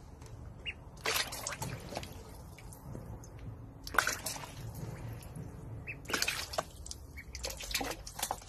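Water splashing and sloshing in a plastic tub as a duckling paddles and flaps in it, in irregular bursts: about a second in, around four seconds, and again from about six to seven seconds.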